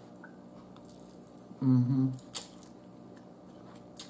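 A person eating noodles with her mouth close to the microphone: a short closed-mouth 'mmm' hum a little before halfway, followed by a couple of brief wet mouth clicks and smacks as she takes in another forkful.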